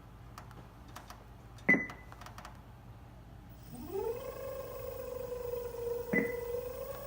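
NordicTrack C900 treadmill drive motor starting up with a whine that rises in pitch, holds steady, then starts climbing again near the end as the belt speeds up; the owner suspects a bad motor bearing. Two short beeps from the console, one before the motor starts and one while it runs.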